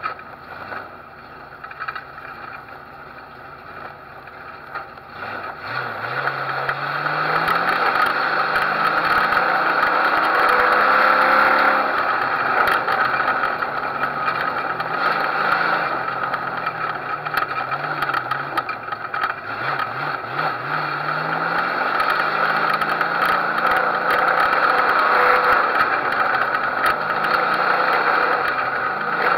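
Figure-8 race car's engine, heard from a camera on its hood, running low for the first few seconds, then picking up about six seconds in and accelerating and easing off again and again, its pitch rising and falling several times.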